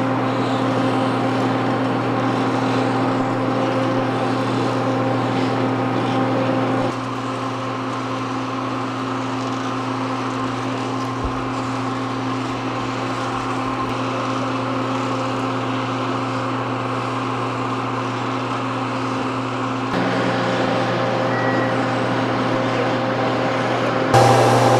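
Steady drone of running machinery: a low hum with a few higher steady tones above it. It drops slightly in level about seven seconds in and rises again about twenty seconds in and once more just before the end.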